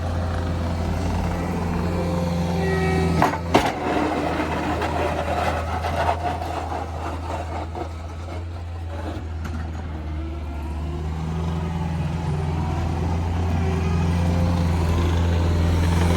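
Engine running steadily at a constant low pitch, with a few sharp knocks about three and a half seconds in and again around six seconds.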